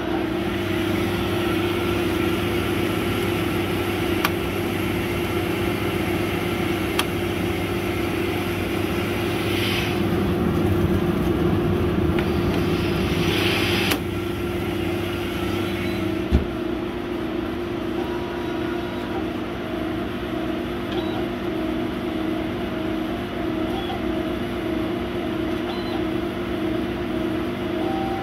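100 W laser cutter's machinery running with a steady multi-tone hum. Two brief scrapes come about ten and thirteen seconds in as the MDF sheet in the bed is handled, with a few light clicks and a single thump soon after.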